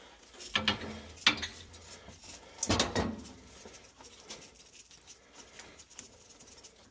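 Metal clinks and scrapes as a loosened threaded pipe nipple is unscrewed from a fitting by hand, with a few sharp knocks in the first three seconds and then faint handling ticks.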